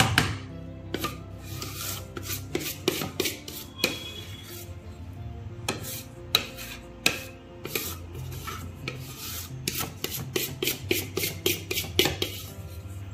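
A kitchen utensil scraping against a container in a series of irregular rasping strokes, as cake batter is worked into a greased tin.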